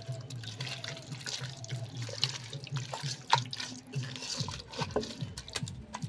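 Hands squelching through raw chicken in a wet spice marinade, with irregular wet clicks and smacks.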